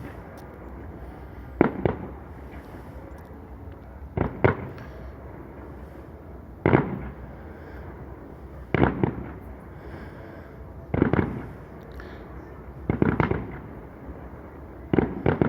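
Fireworks shells bursting in the air as a string of sharp bangs, about seven of them, roughly two seconds apart, each with a short crackling tail.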